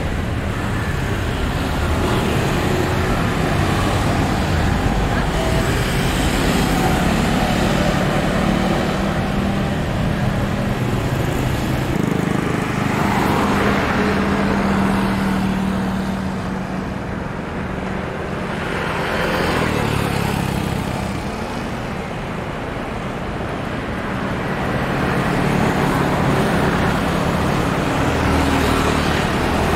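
Steady road-traffic noise, with vehicles passing close by in several swells that rise and fade.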